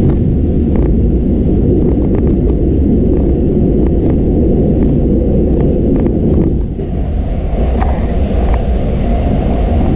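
Moscow Metro 81-740/741 'Rusich' electric train running at speed through a tunnel, heard from the driver's cab: a loud, steady rumble with scattered light clicks. The rumble dips briefly about two-thirds of the way through.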